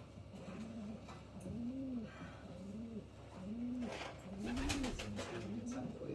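Domestic pigeon cooing: a steady string of short coos, each rising and falling in pitch, about one a second. Brief scratchy rustling noises come about four to five seconds in.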